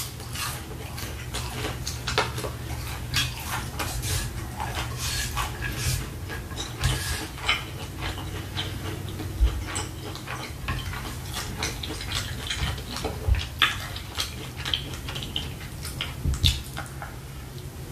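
Close-up chewing and mouth sounds of someone eating shrimp fried rice and egg rolls: irregular wet smacks and clicks, with a spoon tapping the plate now and then, over a steady low hum.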